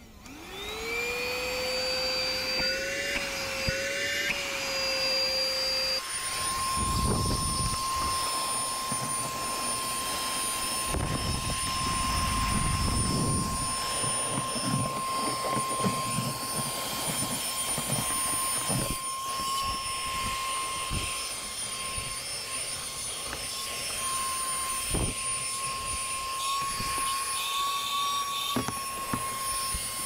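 Chemical Guys DetailVac corded 12-volt handheld vacuum cleaner switching on, its motor whine rising quickly and settling into a steady tone. It then runs with a higher steady whine while it sucks dirt and grit from the car's floor carpet, the tone jumping up about six seconds in.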